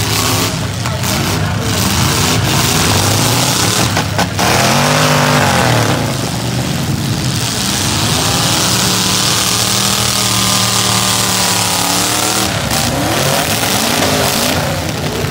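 Several V8 demolition-derby cars revving hard at once, their engine pitches repeatedly rising and falling as they accelerate, over a heavy rush of noise, with a few brief sharp knocks.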